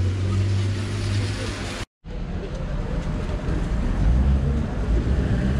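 Low, uneven outdoor rumble, with a brief complete dropout to silence about two seconds in where the recording cuts.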